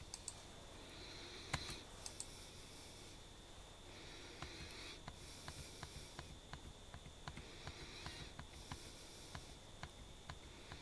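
Faint clicking of keys on a compact Bluetooth keyboard: a few scattered presses, then a steady run of key presses at about two a second from about four seconds in.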